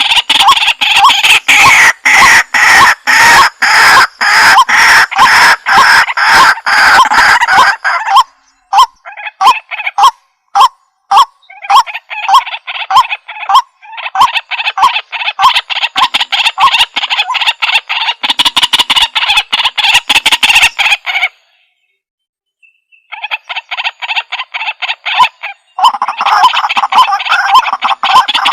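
White-breasted waterhen calling: loud, rapidly repeated croaking notes in a steady run. For a few seconds they thin to separate notes about two a second, then the dense run resumes. Past the middle it breaks off for a second or two, then starts again.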